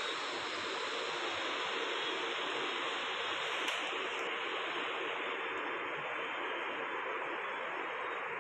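Steady, even rushing hiss of background noise, like running water, with no speech, and a faint click about three and a half seconds in.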